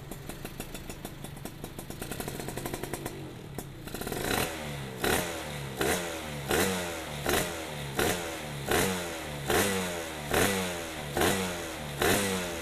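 Suzuki Satria two-stroke single-cylinder engine through an underbelly CMS ABRT20 exhaust. It idles at first, then from about four seconds in the throttle is blipped in quick sharp revs, about one every three quarters of a second. Each rev falls straight back down.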